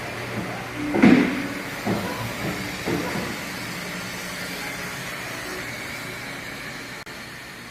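A 75-ton CNC traveling head clicker press running with a steady machine hum. Three thumps of the head coming down, about a second apart, the first the loudest, are its die-cutting strokes through leather.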